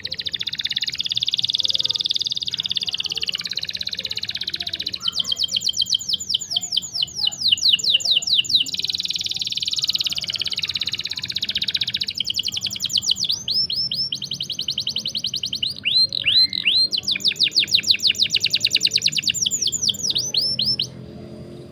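Canary singing long rolling trills: rapid runs of high, repeated down-slurred chirps in several phrases. The song stops about a second before the end.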